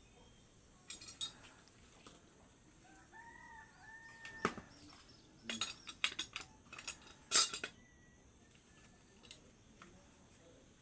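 Hard objects clinking and clattering in scattered sharp strikes, loudest a little past the middle, with a few short chirping calls about three to four seconds in. No motor is running.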